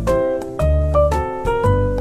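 Background music: a keyboard melody of short notes changing several times a second over a bass line.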